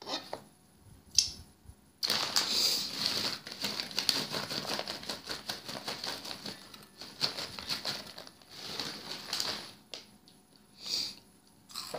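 Crinkling plastic snack bag of Flaming Hot Cheetos being handled and tipped, the puffs spilling out onto a cutting board. The crinkling starts abruptly about two seconds in and dies away about ten seconds in.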